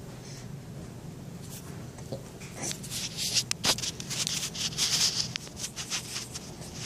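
Soft rustling and scratching with scattered clicks, strongest in the middle of the stretch, over a steady low hum, with a few faint short sounds from a baby.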